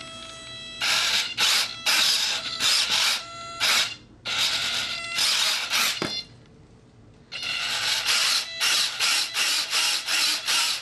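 A small RC servo drives the hinged thrust-vectoring nozzle flaps back and forth, making a run of short buzzing whirs with a gear whine, about two to three a second. The whirs pause for about a second after six seconds in, then go on.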